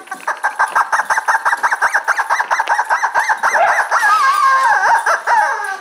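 Vibrant Life Playful Buddy rubber chicken squeak toy squeezed over and over, giving loud squawking squeaks about five a second, then a few longer wavering squawks near the end.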